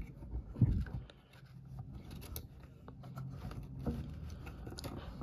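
Plastic toy wrestling ring parts being handled: scattered light clicks and rubbing as the ring ropes are pulled and fitted onto the corner turnbuckle posts.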